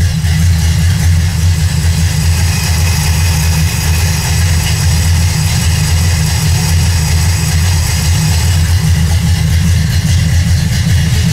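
Cammed Pontiac 400 V8 idling steadily, running on fuel drawn from a newly installed fuel cell.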